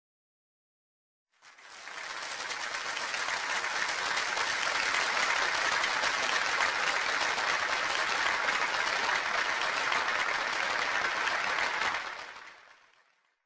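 Applause from a crowd: it fades in about a second and a half in, holds steady, and fades away near the end.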